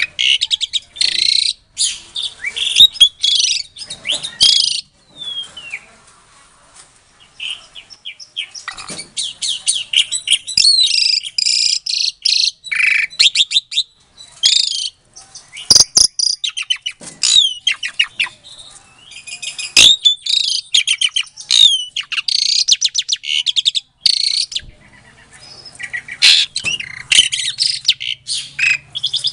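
Pied starling (jalak suren) singing in loud bouts of fast, chattering, whistled and rasping notes, broken by two short lulls. A few sharp clicks stand out among the notes.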